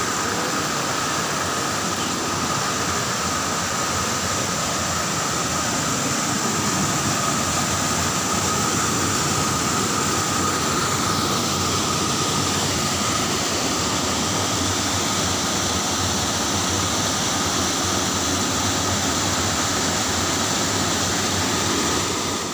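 Waterfall in spate after heavy rains: a cascade rushing over and between large boulders, a steady unbroken roar of water.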